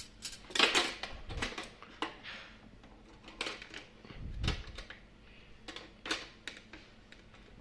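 Irregular clicks, clacks and knocks of a Citrocase Fantastic ECO+ juicer's parts being handled and fitted together, with a loud clatter about a second in and a duller knock around the middle.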